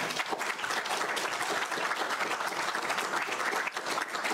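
Lecture audience applauding: many people clapping at once, a steady dense patter that starts just as the talk ends.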